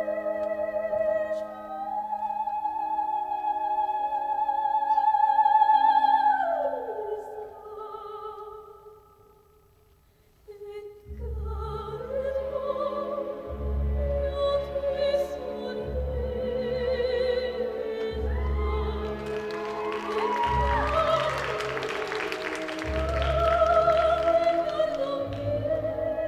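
Slow, dramatic classical-style performance music with a sung melody in long, wavering held notes. About ten seconds in it fades almost to silence, then comes back with deep bass notes every couple of seconds and swells to a fuller, denser passage.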